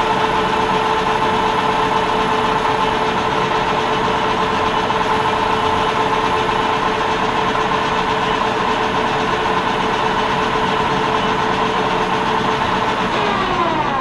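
Metal lathe running steadily while turning brass stock, a constant machine hum with a steady whine. Near the end the spindle winds down, its whine falling in pitch.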